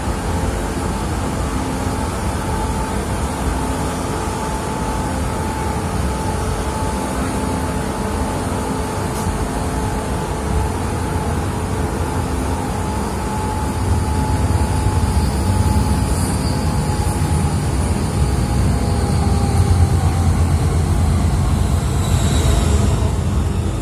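Berlin S-Bahn electric train running, heard from inside the passenger car: a steady rumble of wheels on the track with a constant motor hum. The low rumble grows louder about halfway through, and a faint high squeal comes in near the end.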